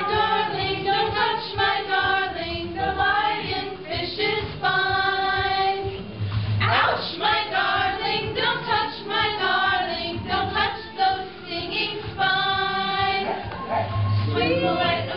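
Several voices singing a song together, with a few long held notes.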